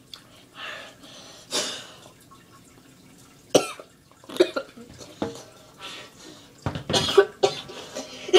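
A boy coughing and clearing his throat in a string of short bursts, about a second apart and coming more often near the end; he says a piece of hard candy feels stuck in his throat.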